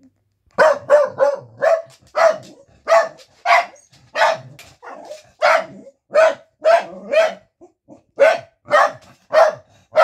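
A corgi barking at a visitor, a rapid run of short, sharp barks at about two a second that starts half a second in.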